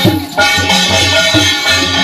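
Tur-thali dance music played live: a tur barrel drum beating about twice a second under the steady ringing of a struck brass thali plate. The sound dips briefly about a quarter second in.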